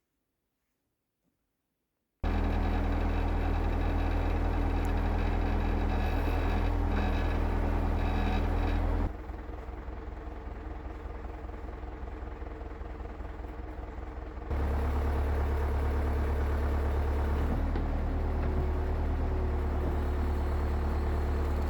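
Case 680G backhoe's diesel engine running steadily. It starts abruptly about two seconds in after near silence, drops to a lower level for about five seconds midway, then comes back loud.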